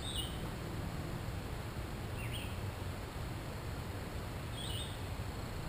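A wild bird calling three times, short high chirps about two seconds apart, over a steady, faint background of outdoor noise.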